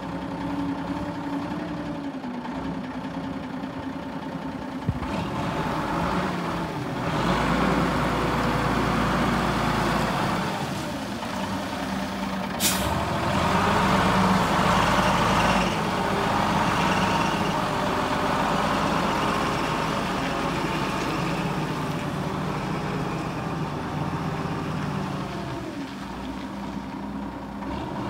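Ljungbytruck LT12 heavy forklift's diesel engine running as the truck drives on gravel, its speed rising and falling; it gets louder from about five seconds in and eases back a little after about sixteen seconds. One brief sharp sound about halfway through.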